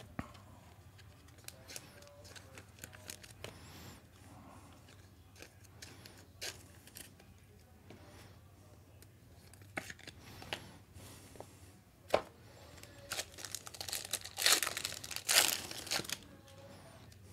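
Foil trading-card pack wrapper being handled, then torn open and crinkled, loudest near the end. Light clicks and rustles of the cards and wrapper come before it.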